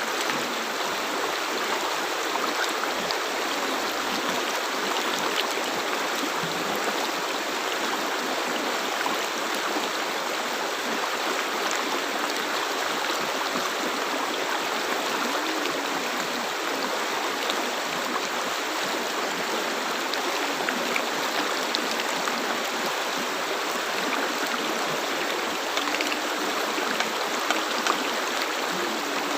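River water flowing steadily over rocks, a constant rushing with small splashes and gurgles over it.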